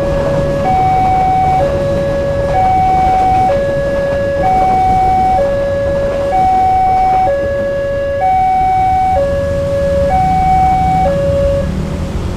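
Railway level-crossing warning siren sounding a two-tone high-low alternation, each tone held just under a second, stopping shortly before the end. A low rumble runs underneath.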